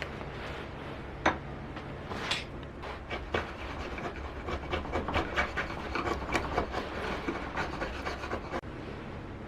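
Hand tool working wood: a few sharp knocks, then a run of quick rubbing, rasping strokes from about four seconds in that stops shortly before the end.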